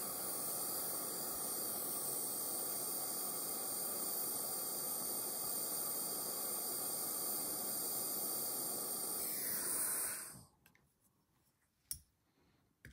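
A small handheld gas torch hisses steadily while its flame heats a silver jump ring and solder to join them. About ten seconds in the torch is shut off and the hiss dies away, followed by a faint click.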